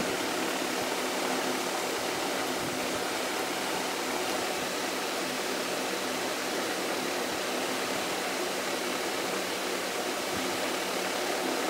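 Steady, even rushing hiss of room background noise with a faint constant hum; nothing else stands out.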